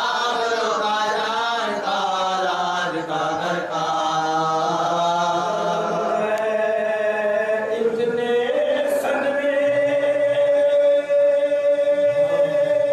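Marsiya (Urdu elegy) chanted by a male reciter in a slow melodic style, the voice gliding between notes. In the last third he holds one long, steady note.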